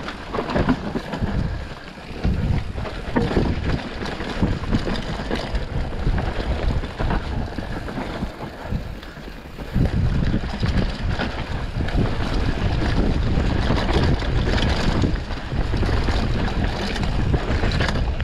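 Wind buffeting the microphone over tyres rolling on dirt during a mountain bike descent, with frequent knocks and rattles from the bike over bumps. The rush grows louder and steadier about ten seconds in.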